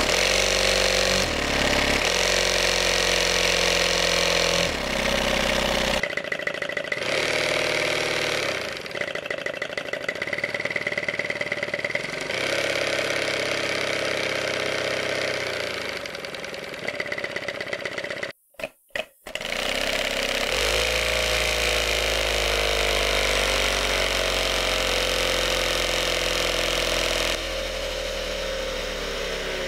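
A 3D-printed single-cylinder engine model with a VTEC valve changeover, running fast on an air supply and rising and falling in speed while its exhaust valve is adjusted to set the changeover point. The running sound breaks off abruptly a few times.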